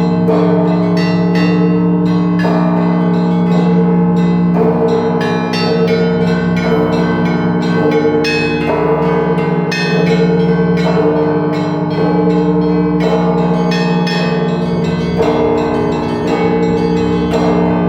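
Russian Orthodox belfry bells rung in a zvon: quick, dense strikes on the small bells over the ringing of the larger bells. The rhythm pattern changes every couple of seconds.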